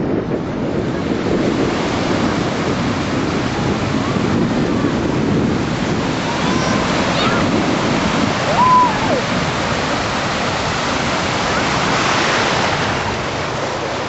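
Ocean surf washing and breaking on a shallow beach, a steady rushing with a swell of louder breaking noise a little before the end, with wind buffeting the microphone.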